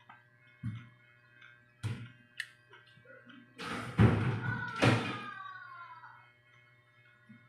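A couple of dull knocks and a click as food is picked out of a plastic bowl, then about two seconds of close-up biting and chewing noise.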